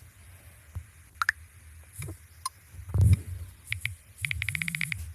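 Smartphone screen-reader interface sounds: scattered clicks and short electronic beeps, then a rapid buzzing pulse lasting under a second near the end.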